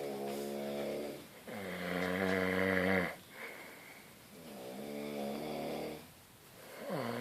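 Heavy snoring with a strong buzzing pitch, which the title calls not normal. Two breaths are heard, each a snore followed half a second later by a louder, raspier one, and the second breath comes about three and a half seconds after the first.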